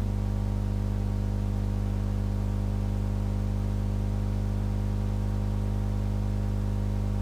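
Steady electrical mains hum with a buzzing stack of overtones over a constant hiss, picked up by the recording chain; nothing else happens.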